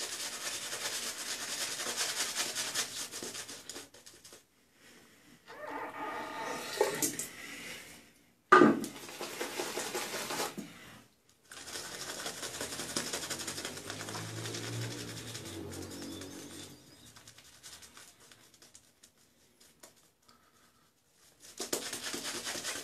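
Shaving brush swirling lather over a bearded face: a soft, bristly rubbing that comes in spells with quiet pauses between, and a sharp click about halfway through.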